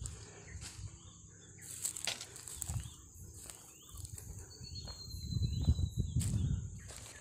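Wind buffeting the microphone, with crunching footsteps and crackles of dry leaf litter and dead stalks underfoot. A steady high-pitched hum runs beneath, and a thin whistled note sounds for about two seconds past the middle.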